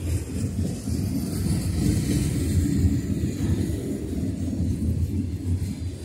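Freight train's autorack cars rolling past: a continuous low rumble of steel wheels on rail, with some hiss on top that is strongest a couple of seconds in.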